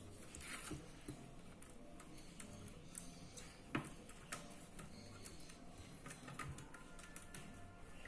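Faint scraping and light ticks of a silicone spatula spreading béchamel sauce across the bottom of a metal baking pan, with one sharper tap just before the middle.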